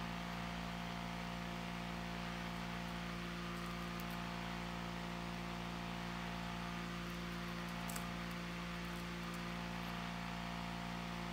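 Steady electrical hum with a faint hiss, holding several unchanging low tones. A few faint light clicks, around four and again about eight seconds in, as small rhinestones are handled in a plastic case.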